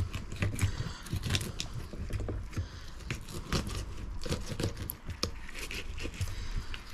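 Filleting knife scraping and cutting along a blue cod's backbone: a run of irregular small clicks and scrapes.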